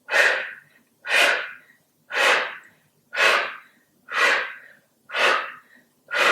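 A woman's forceful exhalations through the mouth: seven short, sharp puffs of breath, one about every second, paced to side bends in a yoga exercise.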